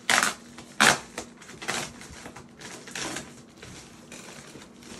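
Sunglasses packaging and case being handled by hand: two sharp rustling scrapes within the first second, then quieter rustles about two and three seconds in.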